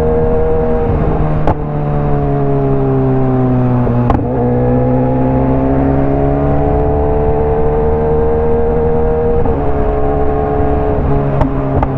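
BMW S1000RR inline-four engine with a loud exhaust running under way, its pitch easing down for a few seconds and then climbing slowly as the bike picks up speed. Three brief sharp clicks cut through: one near the start, one about four seconds in, one near the end.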